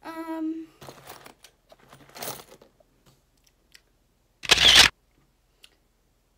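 A short hummed "mm" at a steady pitch from a girl's voice, then a few soft rustles. About four and a half seconds in comes a brief, loud burst of handling noise close to the recording device.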